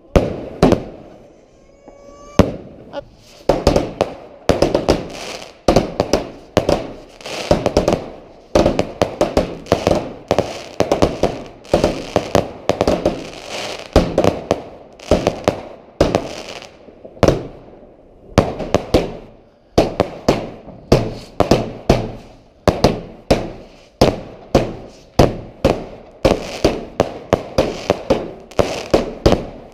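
Fireworks display: rapid, continuous bangs from barrages going off one after another, each with crackling after it, and a short rising whistle about two seconds in.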